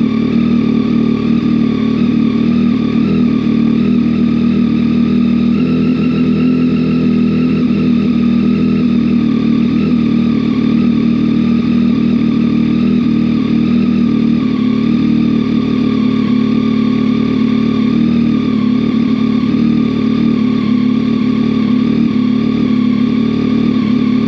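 Yamaha XSR900's inline-three engine idling steadily and loud through a Kelpi Custom Moto shorty aftermarket exhaust, soon after a cold start.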